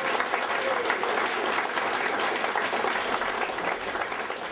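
Audience applauding, the clapping slowly fading away toward the end.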